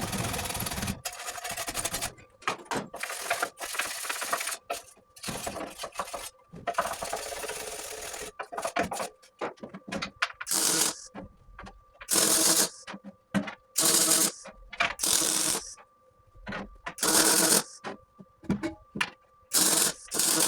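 MIG welder arc on aluminium crackling and hissing as a fuel tank is stitch-welded: a longer run at the start, then a string of short bursts, each under a second, with a faint steady hum between them.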